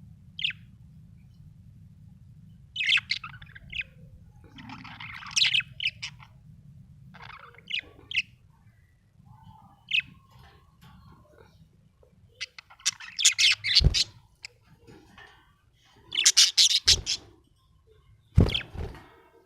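Budgerigar chirping in short high-pitched bursts with pauses between, the chirps coming thicker and louder in two bouts in the second half.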